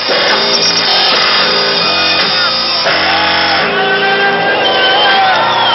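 Loud live electronic rock music from a concert PA, with guitar and gliding voice or synth lines over a pulsing low end, recorded dull with the high end cut off.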